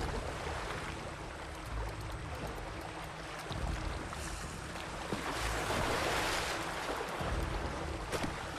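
Sea water washing and splashing as killer whales surge around an ice floe, with wind on the microphone. The rush of water grows louder about five seconds in and eases after a second or so.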